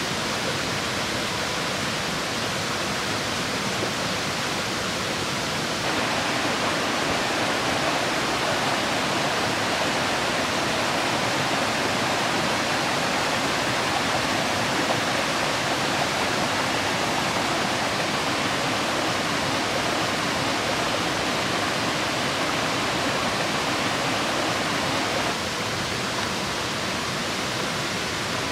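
Steady rushing of a stream, a little louder and brighter from about six seconds in, then dropping back near the end.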